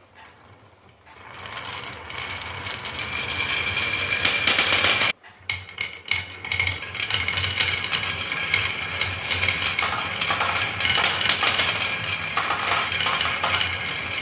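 Marbles clattering and clicking down a wooden HABA marble run in a dense, continuous rattle. It builds up over the first couple of seconds, cuts out abruptly about five seconds in, then starts again.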